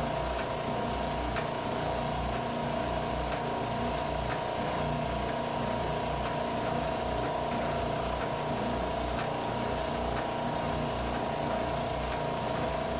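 Ridgid oscillating belt and spindle sander running steadily with a steady whine, sanding a wooden bandsaw box with 80-grit paper.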